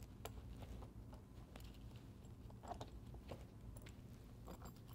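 Faint scattered clicks and light taps of steel bolt solid plate fasteners being pushed into punched holes in a rubber conveyor belt, over a steady low hum.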